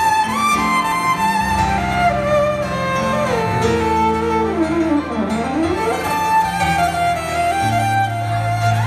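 Solo violin playing a slow, sweeping melody over sustained low accompaniment. About five seconds in, the violin slides down in pitch and climbs straight back up.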